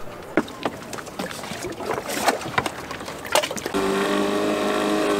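A few light knocks and clicks, then, a little over halfway in, a small outboard motor on an inflatable dinghy starts up and runs steadily at a constant pitch.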